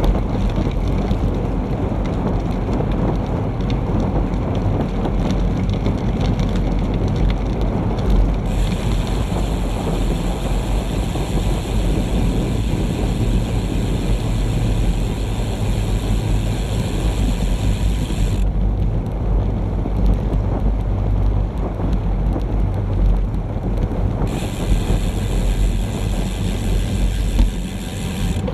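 Wind buffeting the microphone of a bike-mounted Garmin VIRB action camera while cycling at about 30 km/h on wet roads: a steady low rumble. A higher hiss joins at about eight seconds in for some ten seconds, and again near the end.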